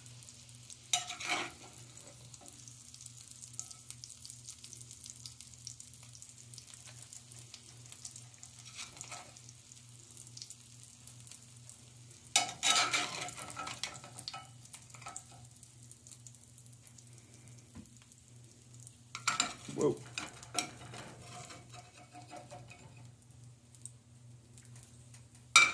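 Hot oil sizzling softly in a cast-iron skillet, with a metal spatula scraping and knocking against the pan a few times, loudest around the middle and again about three-quarters through. A steady low hum sits underneath.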